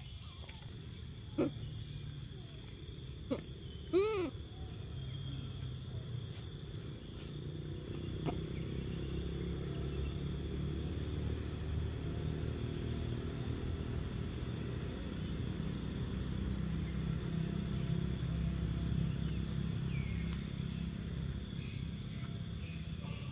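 Short squeaky calls from a macaque: a brief one about a second and a half in and a louder one that rises and falls about four seconds in. Steady high insect buzzing and a low rumble run underneath.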